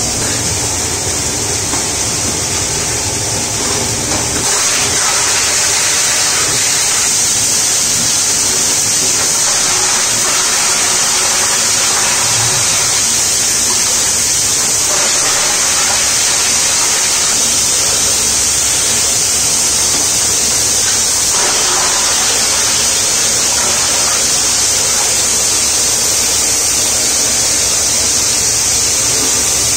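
RE12 LDPE plastic grinder with its blower running: a loud, steady rush of air over a low machine hum. The rush grows louder about four seconds in.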